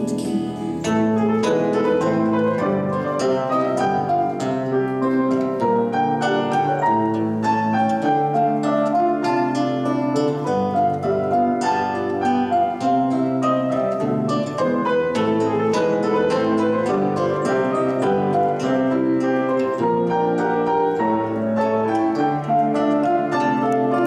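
Instrumental break of a song with no singing: a small round-bodied plucked string instrument picks a continuous stream of notes over piano chords.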